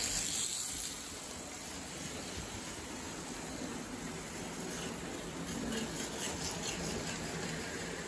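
Lionel postwar O gauge toy train, steam-hauled freight, running on three-rail tubular track: a steady rumble of wheels and motor, with rapid clicking over the rail joints as the train comes close, loudest about six seconds in.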